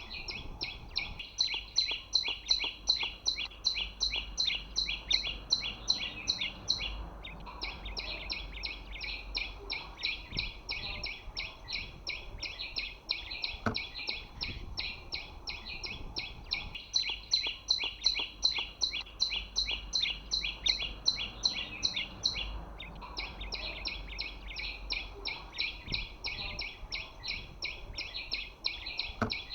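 Bird song: a fast, unbroken string of high chirping notes, several a second, pausing briefly about seven seconds in and again about two-thirds through. The pattern comes round again about every fifteen seconds, like a looped recording.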